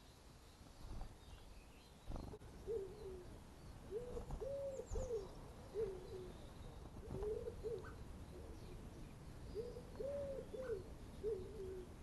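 A dove cooing: short, arched low notes repeated in phrases of two to four, with pauses between the phrases. Faint high chirps from small birds sound now and then.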